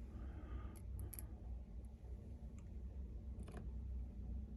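A few faint, scattered clicks of small parts and tools being handled on a repair bench, over a low steady hum.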